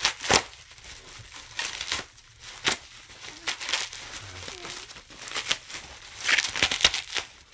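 Bubble wrap and plastic packaging crinkling and crackling as a package is handled and unwrapped, in irregular bursts with a dense run of crackles near the end.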